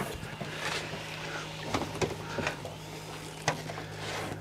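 Scattered light knocks and clatters of gear being handled in an aluminum boat, over a steady low hum.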